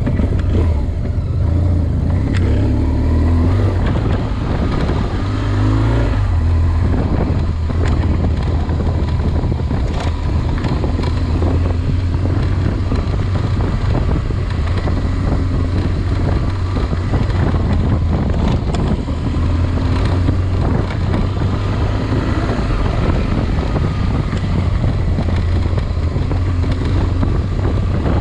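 A vehicle's engine running continuously, its revs rising and falling a little.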